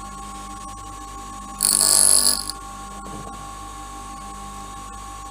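Creusen grinder motor running with a steady whine. About one and a half seconds in, the twist drill is pressed to the stone for about a second, giving a loud, high grinding hiss as metal is ground off the drill's cutting face.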